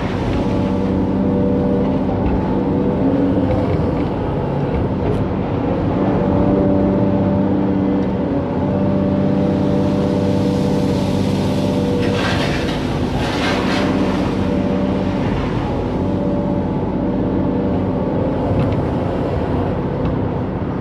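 Excavator's diesel engine running steadily, with a short noisier stretch about twelve seconds in.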